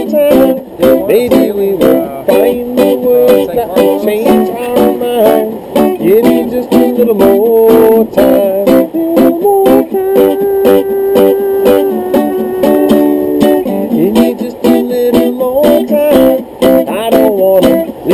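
Guitar playing an instrumental passage of a song, picking out a melody note by note, with a few notes held longer around the middle.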